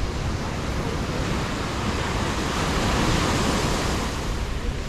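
Small waves breaking and washing up on a sandy beach as a steady surf wash, swelling a little as a wave comes in about halfway through.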